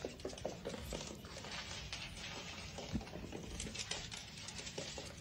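Faint, quick, irregular tapping of a kitten's paws and claws on a hardwood floor as it trots along.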